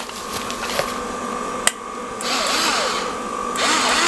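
Small electric motor of a USB-rechargeable mini garlic chopper running. A sharp click comes partway through, and a louder stretch of whirring follows in the second half.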